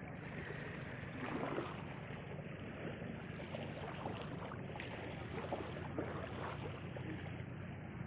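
Shallow seawater sloshing and splashing around a person wading as a fishing net is dragged toward the beach, with wind buffeting the microphone. A few louder splashes stand out against the steady wash of water.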